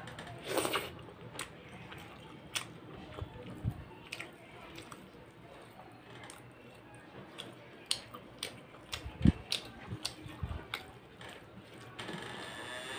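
A person chewing big mouthfuls of mutton curry and rice, with wet mouth clicks and smacks at irregular moments. A dull low thump about nine seconds in is the loudest sound.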